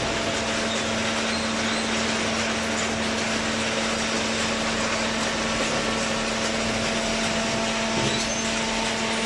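Baling machine running steadily: an even mechanical rush with a steady hum over it.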